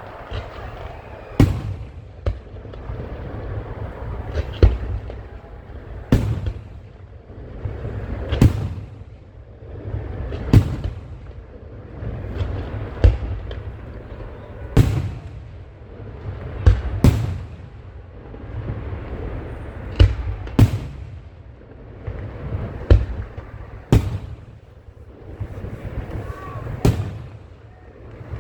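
Fireworks display: shells bursting with sharp bangs every second or two, a dozen or more in all, with rumbling echoes between them.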